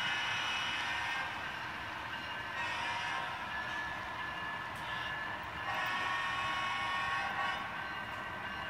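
HO scale model freight cars rolling past close by, their wheels running on the rails with a steady rattle and high ringing tones that swell and fade several times.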